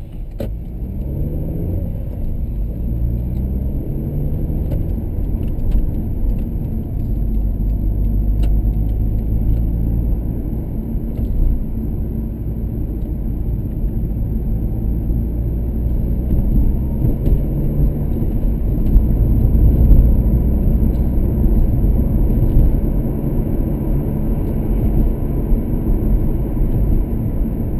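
Car engine and road noise heard from inside the cabin, a steady low rumble. About a second in, and again past the middle, the engine note climbs in rising sweeps as the car accelerates through the gears.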